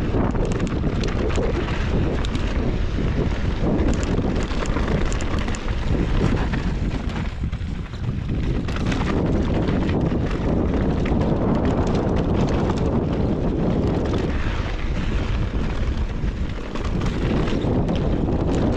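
Heavy wind rush on the microphone, with scattered rattles and knocks through it. The level dips briefly about eight seconds in and again near sixteen seconds.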